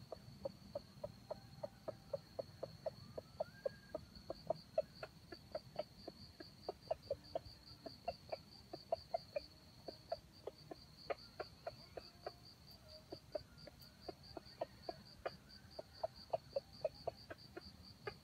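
Red junglefowl (wild chicken) clucking steadily: short, sharp clucks about three a second. Behind it an insect trills with a high, evenly pulsing note.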